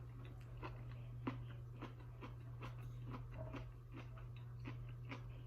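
A person chewing food, with soft irregular mouth clicks and smacks one or two a second, over a steady low hum.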